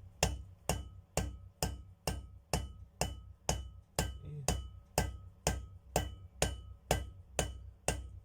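Small hammer tapping a new bearing into place on a vacuum cleaner motor: steady, evenly spaced light blows, about two a second, each with a short metallic ring.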